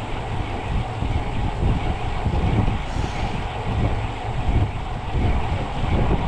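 Wind buffeting a camera microphone on a moving bicycle, over a steady, uneven low road rumble.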